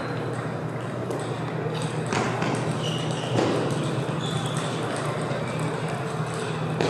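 Table tennis practice hall: a steady low ventilation hum and distant voices, with scattered knocks of celluloid balls off paddles and tables, and a sharper paddle hit near the end as a rally starts.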